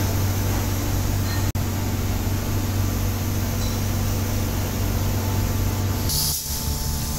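Compressed-air spray gun hissing steadily as it sprays a coating onto brake shoes, over a steady low hum. The sound cuts out for an instant about a second and a half in, and near the end the hiss brightens as the low hum drops away.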